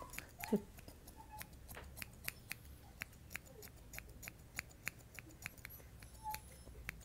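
Grooming scissors snipping hair on the inside of a Yorkshire terrier puppy's front leg: quick, faint snips, several a second. One brief falling voice-like sound about half a second in.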